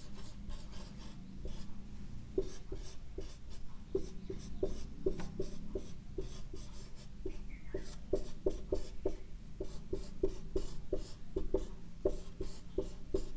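Whiteboard marker drawing on a whiteboard: a long run of short strokes and taps, two or three a second, as cells are sketched in.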